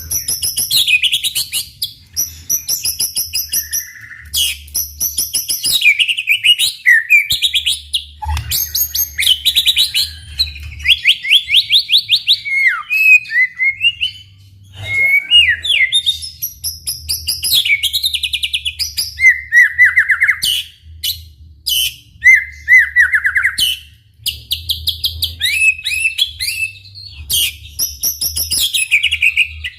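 White-rumped shama singing a long, varied song: rapid trills, whistled glides and quickly repeated notes, with only short pauses between phrases.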